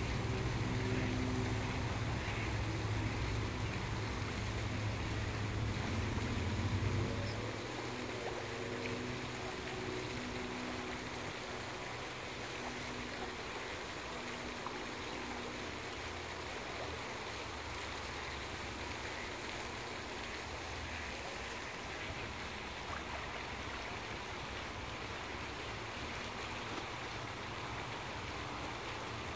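A distant motor's low, steady drone fades out about seven seconds in, leaving a steady outdoor background hiss.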